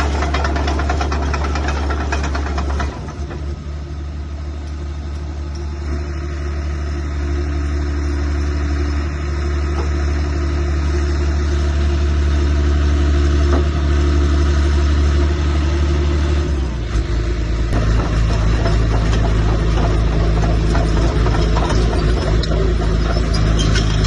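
Caterpillar D3C Series III LGP bulldozer's diesel engine running steadily, its note changing about three seconds in and again around two-thirds of the way through.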